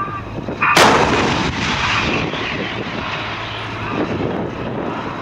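A Challenger tank's 120 mm main gun fires once, about a second in: a sharp crack followed by a long rumbling echo that rolls on for several seconds.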